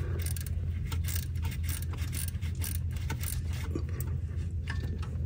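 Quarter-inch drive ratchet with an 8mm socket clicking in quick, uneven runs as it is worked back and forth to back a small nut off, over a steady low hum.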